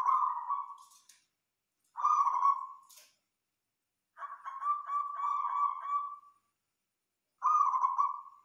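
Zebra dove (perkutut) cooing: a run of mellow, low coos about every two seconds, one at the start, one about two seconds in, a longer rolling, stuttered coo in the middle, and another near the end.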